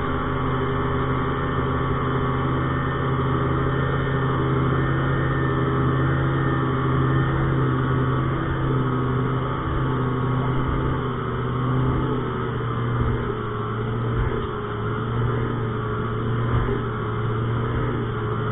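A 200-horsepower outboard motor pushing a fishing boat at planing speed, a steady drone with the rush of water and wake beneath it.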